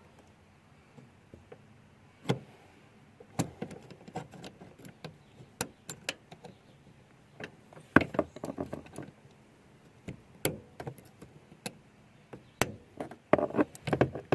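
Irregular clicks, taps and light knocks of hand tools and parts being worked on a car door, with a quicker run of knocks near the end.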